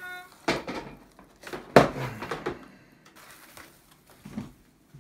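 Thin foam packing sheet rustling and crackling as it is lifted off a socket set in its plastic case, with a loud crackle about half a second in and a louder one near the two-second mark, then smaller rustles.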